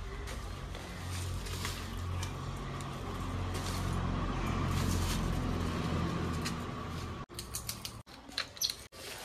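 A steady low mechanical hum that breaks off suddenly about seven seconds in, followed by a few short, choppy snatches of sound.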